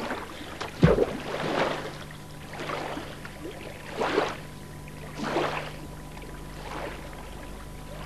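Sea water splashing and sloshing against an inflatable boat as a scuba diver goes into the water beside it. There is a sharp splash about a second in, then several softer swells of splashing over a steady low hum.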